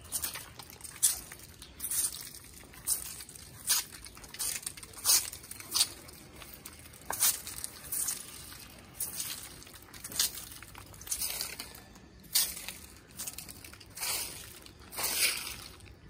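Footsteps in plastic mesh sandals on a concrete path, a short sharp step sound about once a second at an uneven pace.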